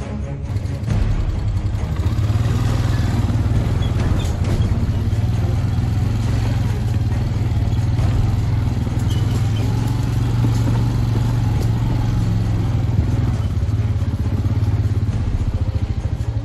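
An ATV (quad) engine running steadily, a low even drone.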